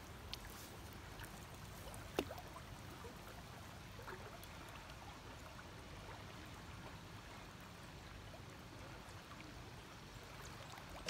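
Faint river water running and lapping close to the camera held at the surface of the river, with a few small ticks, the sharpest about two seconds in.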